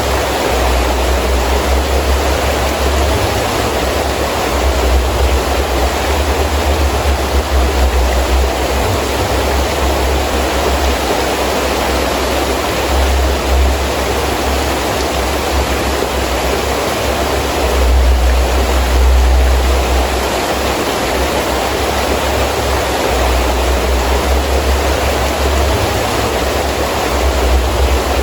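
Heavy rain falling steadily in a gusting wind, the wind's deep rumble coming and going under the rain's hiss and swelling a little about two-thirds of the way through.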